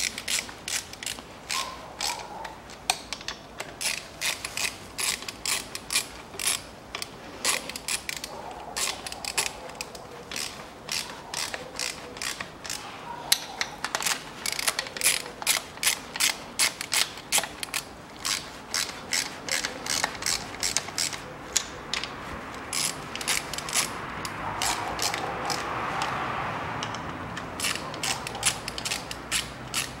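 Hand ratchet wrench clicking in quick runs with short pauses as it is swung back and forth, driving bolts on a manual gearbox's cover housing.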